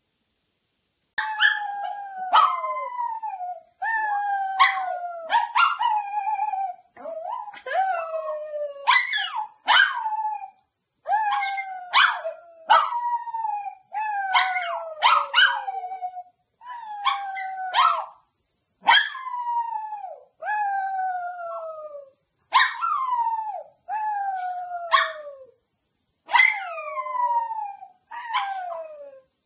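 Long-haired chihuahua howling: starting about a second in, a long string of short howls, each opening with a sharp yip and sliding down in pitch, with brief breaks between them.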